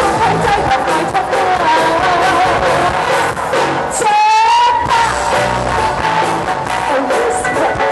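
A live rock band playing drums and electric guitar while a woman sings into a microphone. The low end of the band drops out for a moment about halfway through.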